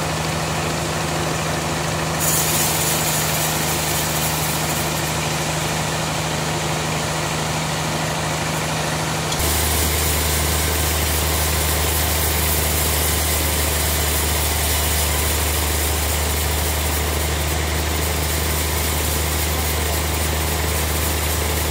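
Steady drone of running sawmill machinery. About nine seconds in it changes abruptly to a heavier, lower drone with a bright hiss on top as a horizontal band saw cuts through a dry log.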